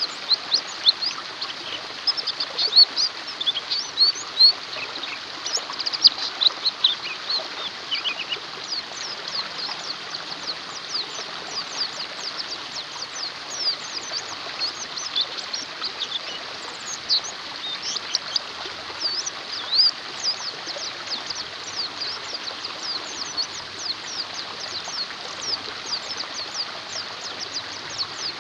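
Many white-eyes (pleci) chirping, a dense chatter of very short, high-pitched, steeply falling notes, over the steady rush of flowing water.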